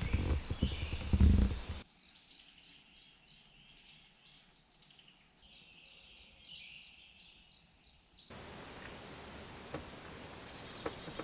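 Woodland ambience with small birds chirping and calling, many short high notes through the middle and another call near the end. A low rumbling noise on the microphone fills the first couple of seconds, and a faint steady hiss with a few small clicks takes over in the later part.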